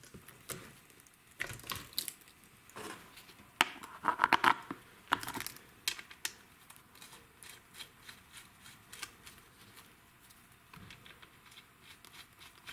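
Saw chain and guide bar being handled and fitted onto a Stihl 026 chainsaw: irregular metal clicks and rattles of the chain links, busiest about four seconds in, then lighter scattered ticks.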